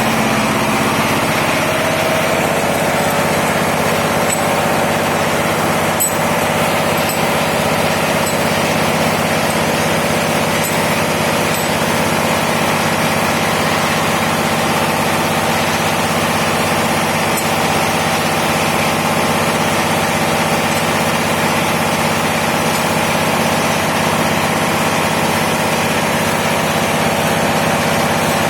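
An engine running steadily: a loud, constant drone with no change in speed.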